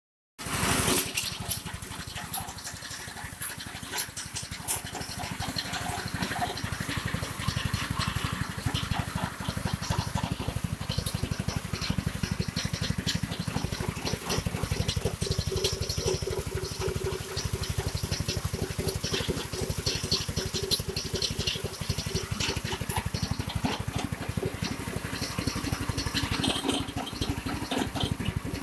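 Seaweed chopping machine running steadily with a fast, even pulsing and scattered small clicks; it starts about half a second in.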